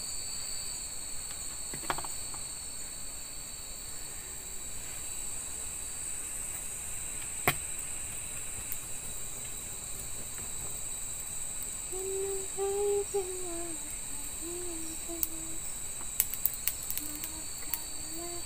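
Steady shrill chorus of night insects such as crickets, with a few sharp crackles and pops from a small wood campfire. From about twelve seconds in, a person hums a low wavering tune.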